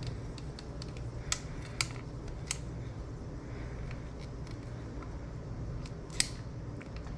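A block of cheese rubbed down a flat metal grater: soft scratchy rasping strokes with a few sharp clicks, the loudest about six seconds in, over a steady low hum.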